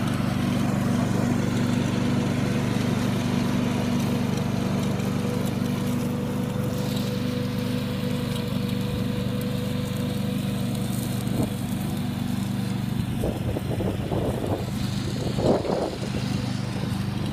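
Lawnflite lawn mower engine running steadily at a constant speed.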